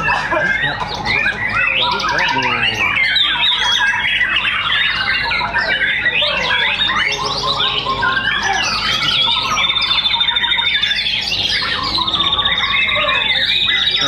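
White-rumped shama (murai batu) singing loudly in a rich, varied run of chirps, whistles and glides, over many other caged contest songbirds singing at once. A rapid, steady high trill joins near the end.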